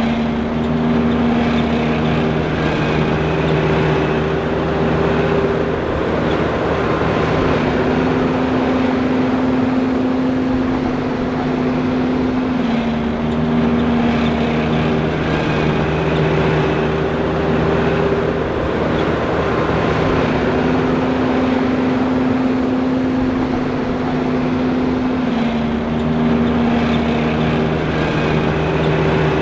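John Deere 5820 self-propelled forage harvester running: a loud, steady machine roar with a hum whose pitch steps up and down every few seconds, in a cycle that repeats about every thirteen seconds.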